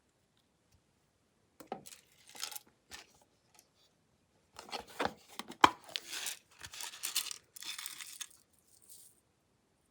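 Glossy slime being worked by hand, crackling and popping in irregular bursts after a moment of near silence, with one sharp pop about halfway through as the loudest sound.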